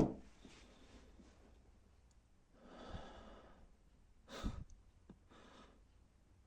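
A person's breathing and sighing: a longer breath about three seconds in, a shorter, stronger breath near four and a half seconds, and a soft one just after. A sudden loud burst opens it, fading within half a second.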